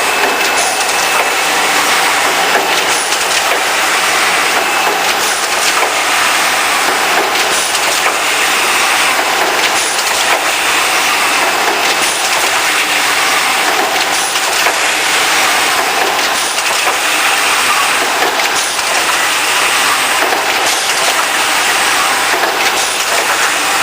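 Automatic IC card milling machine running, a steady hissing mechanical noise with faint repeated ticks.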